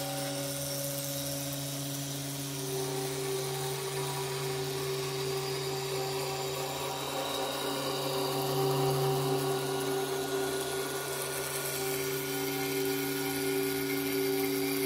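CNC machine spindle running steadily as its long thin cutter mills polystyrene foam: a steady whine of several tones over a light hiss, swelling slightly about nine seconds in.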